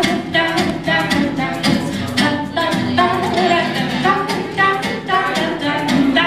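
Live acoustic folk song: voices singing over an acoustic guitar, with steady hand claps, about three a second, keeping the beat.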